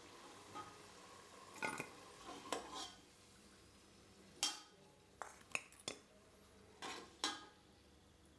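Steel ladle clinking and scraping against the side of a metal pot as fried potatoes are scooped out of the oil: about a dozen short, sharp clinks at irregular intervals.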